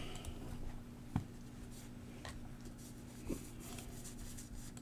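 Quiet room with a steady low electrical hum and two faint taps, one about a second in and another past three seconds, as trading cards are handled and set down.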